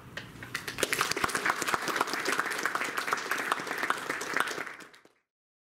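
Seminar audience applauding, the clapping building up within the first second and fading out near the end.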